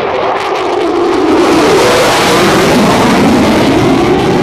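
Jet noise from an F-16 Fighting Falcon passing low in a banked turn: a loud, rushing roar that swells about a second in. A droning pitch in it sinks and then climbs again as the jet goes by.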